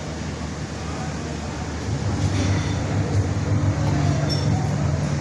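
Steady low machine hum over a noisy background din, louder from about two seconds in.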